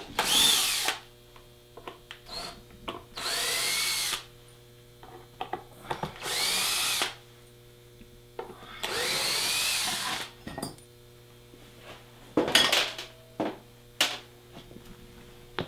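Cordless drill driving screws through the edge of a deer shoulder mount into a wooden drying board: four runs of about a second each, a few seconds apart. A few short clicks and knocks follow near the end.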